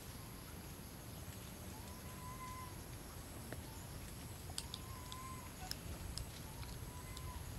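A soft, whistle-like animal call, each just under a second long with a slight rise and fall in pitch, repeated about every two seconds, with a few faint sharp ticks near the middle.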